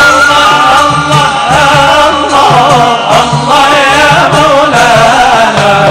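Nay (end-blown reed flute) playing an ornamented Middle Eastern melody, with held notes, between sung lines of a devotional song, over a low pulsing accompaniment.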